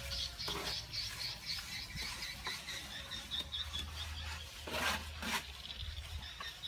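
Steel plastering trowels scraping cement render across a wall and clicking against a mortar pan, with one louder scrape about five seconds in. A rapid high chirping and a low rumble sit underneath.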